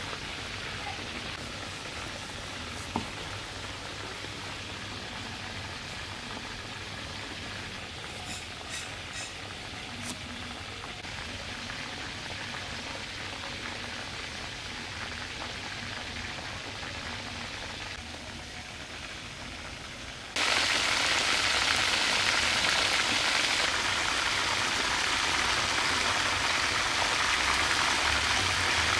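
Chicken frying in a hot pan, a steady sizzle that turns suddenly much louder about two-thirds of the way through.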